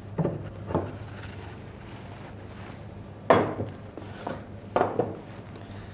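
A white ceramic plate being picked up and set down on a plastic cutting board: a few light knocks and clinks, the loudest a little over three seconds in, over a low steady hum.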